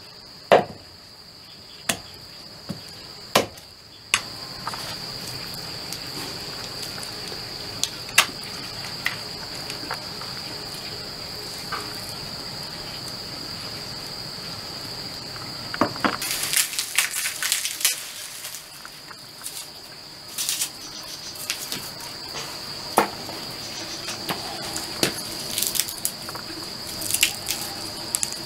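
A large knife chopping chicken pieces on a wooden block: a few sharp knocks in the first few seconds, with scattered lighter knocks and clicks later on. Under it runs a steady high-pitched insect drone.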